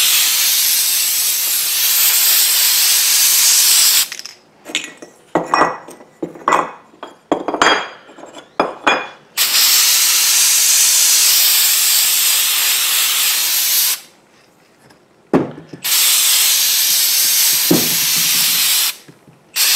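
Aerosol can of WD-40 Specialist long-term corrosion inhibitor spraying onto a motorcycle carburetor in three long hissing bursts. Between the first two bursts there is a run of clicks and knocks as the metal carburetor parts are moved, and there are a couple of single knocks before the last burst.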